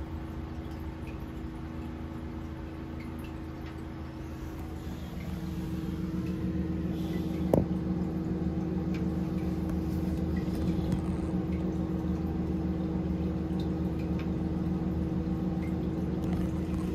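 Paterson print washer running, water flowing through it and trickling out of its outlet hose onto the tile floor, working again after its agitation plunger was replaced with a 3D-printed part. A steady hum underneath grows louder about five seconds in, with faint ticks and one sharp click just past the middle.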